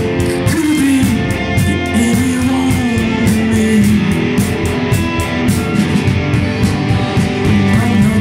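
Live rock band playing an instrumental passage: electric guitars, one playing a lead line with bent notes, over bass and a drum kit with steady cymbal strokes.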